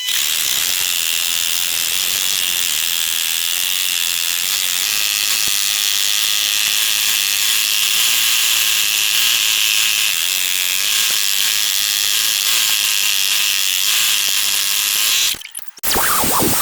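Power tool shaping wood, a steady high-pitched whir that cuts off about fifteen seconds in.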